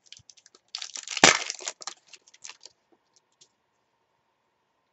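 A trading card pack's wrapper being torn open: a burst of crinkling about a second in, with one loud crack, then a few soft crinkles and clicks before it goes quiet.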